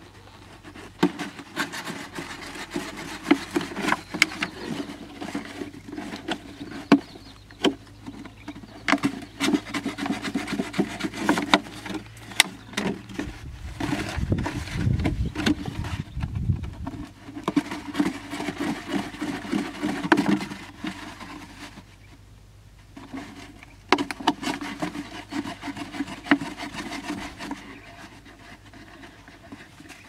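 A knife point cutting and scraping through a large thin plastic water bottle: irregular crackling and scratching of the plastic, with sharp clicks and knocks as the bottle is handled. A brief low rumble about halfway through.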